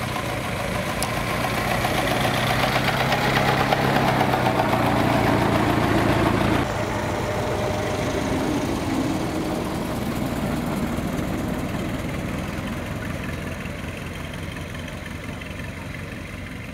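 Vintage Ford Model T four-cylinder engines running as the cars drive slowly past, growing louder as the lead car nears. The sound drops suddenly about six and a half seconds in, then fades as the cars move away.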